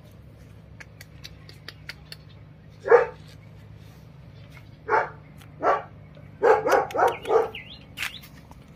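Shepherd puppy barking: a single bark, two more a couple of seconds later, then a quick run of four. Faint clicks and crackles in between.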